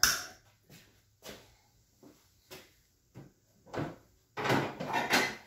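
Metal hand tools being handled at a workbench: a sharp clank at the start, a row of light knocks about every half second, then about a second of louder clattering and rattling near the end.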